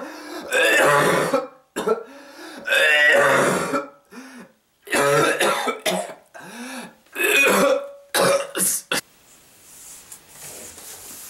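A person coughing hard in about five separate fits, with short wheezy breaths drawn in between. The coughing stops about nine seconds in.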